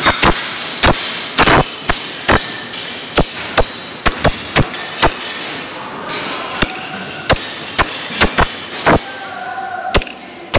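Hand hammer striking a cold chisel held on a metal plate on a bench: sharp metallic blows at an uneven pace, about two a second, with a short pause a little past the middle.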